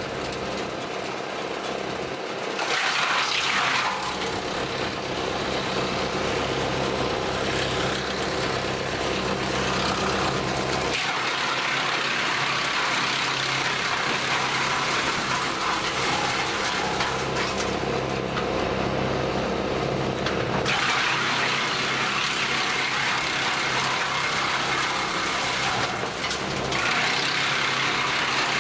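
Jansen BX-62RS tractor-PTO wood chipper running steadily, shredding long branches in long stretches of loud rushing and crackling as the wood is pulled in and the chips blow out of the chute. The tractor engine hums steadily underneath.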